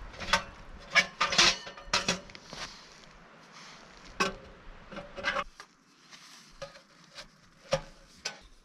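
Sheet-metal stovepipe sections clinking and clanking as they are fitted together and onto a small wood stove: a handful of sharp metal knocks, several in the first two seconds and a couple more near the end.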